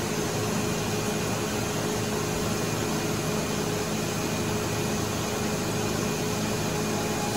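Atlas Copco GA75 VSD oil-injected rotary screw air compressor running steadily under load: an even whirring noise with a constant mid-pitched hum, as its pressure climbs toward the 7.2 bar setpoint just before the variable-speed drive slows it down.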